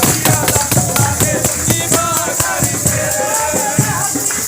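Live music with a steady percussion beat and a constant jingling, rattle-like shaker sound, over a pitched melody line.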